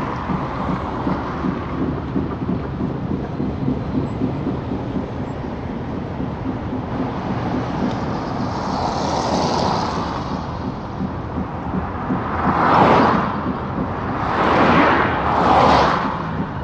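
Engine and road noise inside a moving vehicle, a steady low rumble, with three louder rushing swells near the end.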